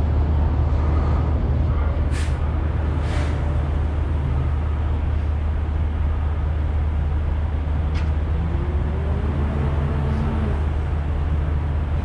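Steady low hum of an idling vehicle engine, with two short hisses about two and three seconds in and a single click about eight seconds in.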